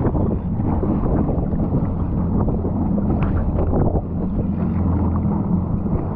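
Jet ski engine running at idle, a steady low hum, with wind buffeting the microphone over choppy open water.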